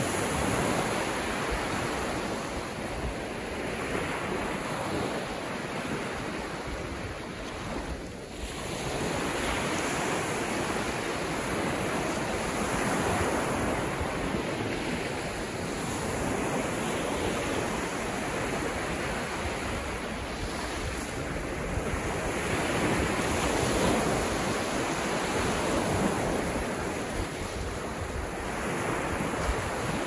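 Small, calm ocean waves breaking and washing up a sandy beach: a continuous wash of surf that swells and ebbs with each wave.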